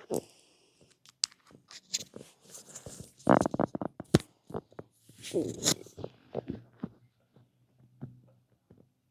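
Close-miked human stomach gurgling: irregular clusters of clicky gurgles, the loudest about three and five and a half seconds in, one sliding down in pitch.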